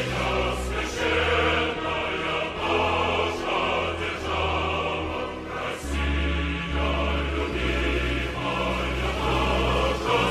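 Choral music: a choir singing sustained chords over a heavy, loud bass, the chords changing about every second.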